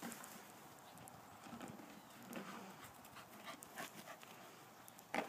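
Footsteps crunching irregularly through thin snow, with a dog panting close by and a single short, sharp sound near the end.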